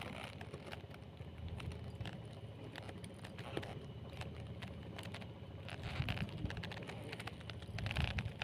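Spinning reel ticking irregularly as line is wound in against a hooked fish, over a steady low rumble.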